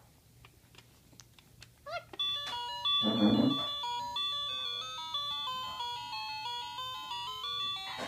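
Plastic musical toy playing a simple electronic tune of stepped beeping notes, starting about two seconds in after a few faint clicks. A short, louder noisy burst comes about a second after the tune starts.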